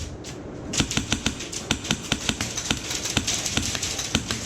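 Airsoft guns firing: sharp irregular cracks and clicks, several a second, over a steady hiss, with a quieter gap in the first moment.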